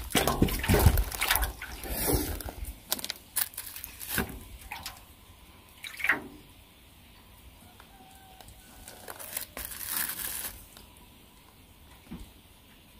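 Close handling noises: rustles, taps and sharp clicks, dense over the first four seconds with a low rumble, then sparser, with a short rustling burst near ten seconds.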